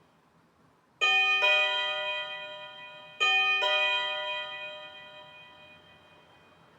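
TecNet HWDO1816 wireless doorbell receiver playing a two-note ding-dong chime twice, about a second in and again about three seconds in, each ringing out and fading. The chime shows the receiver is picking up the push-button's wireless signal.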